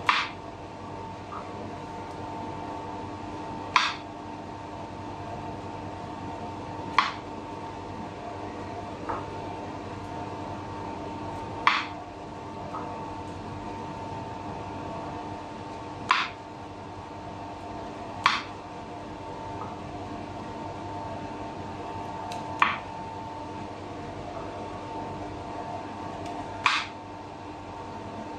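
Knife coming down on a bamboo cutting board, about nine sharp single knocks spaced a few seconds apart, as mushrooms are cut. Under it runs a steady fan hum with several fixed tones.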